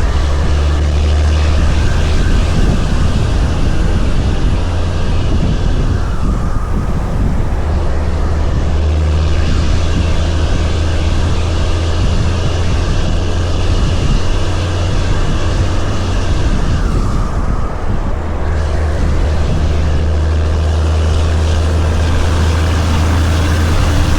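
Heavy-haul semi truck's diesel engine running steadily under a heavy load of about 129,000 lbs gross, a deep, constant drone over road noise. It eases off briefly about three-quarters of the way through.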